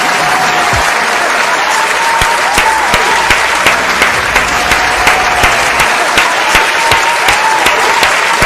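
Dense, steady applause, many hands clapping, with a few thin whistles over it.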